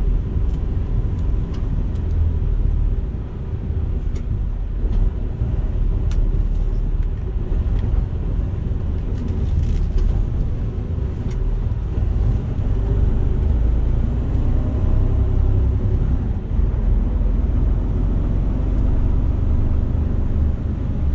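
Mercedes-Benz Actros truck's diesel engine running steadily while driving on a snow-packed street, heard from inside the cab as a low rumble.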